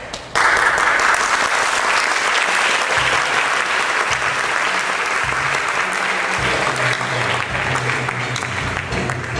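Theatre audience applauding, starting suddenly about half a second in and keeping up steadily. Low bass notes of instrumental music come in underneath it from about the middle.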